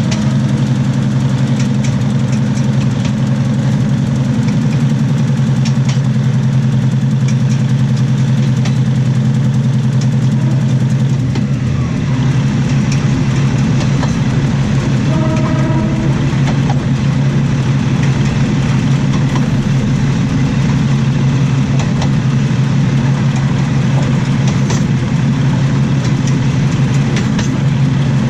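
Diesel railcar running at speed, heard from under the carriage: a steady low drone from the underfloor engine and drivetrain, with the wheels clicking and clattering over the rails. A brief higher tone sounds about halfway through.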